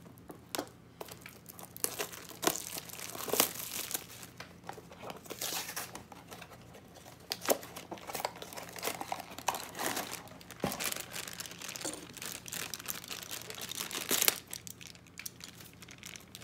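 Funko Mystery Mini blind-box packaging being opened by hand: cardboard and the inner wrapper crinkling, rustling and tearing in irregular crackles.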